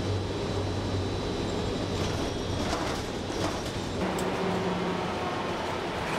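Steady engine and road rumble heard from inside a moving city bus, with a low hum under it that shifts a little about two and four seconds in.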